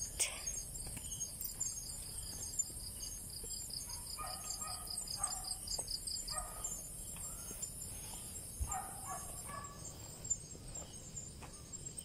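Night insects chirping, crickets among them: a steady high hiss with a pulsing trill that fades out about six seconds in. A few short animal calls come in the middle, and soft footsteps sound on the dirt trail.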